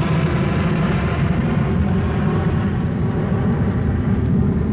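Steady jet airliner engine noise as a sound effect: a continuous low rumble with a hiss above it.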